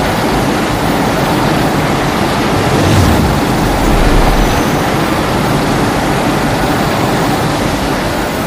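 A loud, steady rushing noise over a deep rumble, from a Godzilla-film sound effect.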